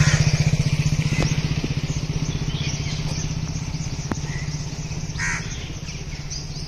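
A vehicle engine running with a fast, even pulse, fading steadily as it moves away. A bird calls briefly about five seconds in.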